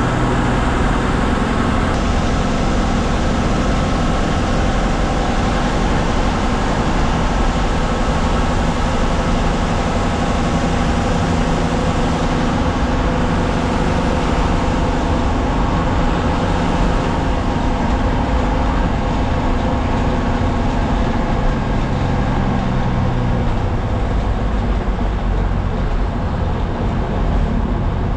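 MSRTC bus diesel engine running under way, with a steady hum of road and tyre noise heard from the driver's cabin. The engine note drops about three quarters of the way through.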